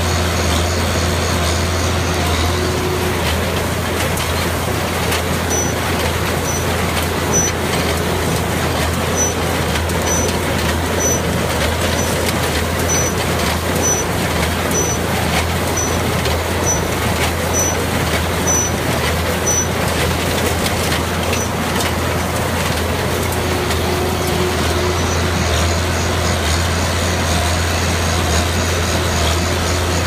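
Allis-Chalmers 185 tractor engine running steadily while pulling and powering an International 440 wire-tie baler through a straw windrow. A short high squeak repeats about once a second through the middle stretch.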